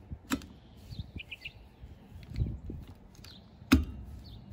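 Plastic clicks and knocks of a new wiper blade being fitted onto a car's wiper arm, with one sharp click, the loudest sound, near the end. Birds chirp briefly in the background.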